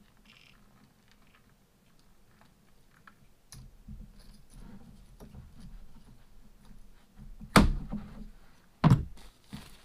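Faint clicking and jingling of a thin metal chain and a small hinged jewelry box being handled on a table, then two sharp knocks about a second apart near the end as things are set down on the tabletop.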